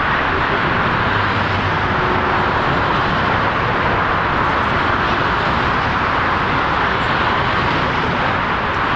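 Steady jet engine noise from a Boeing 777-300ER climbing out after takeoff, its two GE90 turbofans at climb thrust.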